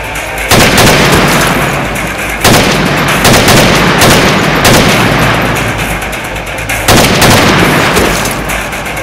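Gunshot sound effects: several heavy, echoing shots, each sudden and fading away over a second or two, one to two seconds apart.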